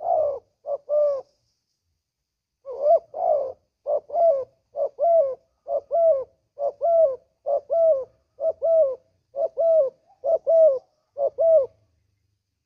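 Spotted dove cooing: a short three-note phrase, then after a pause a steady run of about ten double coos, roughly one a second.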